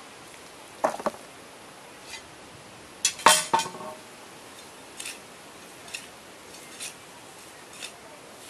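Small metal hand trowel scraping and clinking in the soil of a trench: a pair of sharp clinks about a second in, the loudest cluster of clinks with a short metallic ring about three seconds in, then lighter ticks about once a second.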